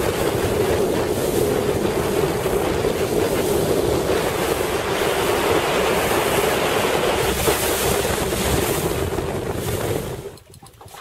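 Small boat under way: a steady motor drone mixed with water and wind noise on the microphone, which drops away abruptly near the end.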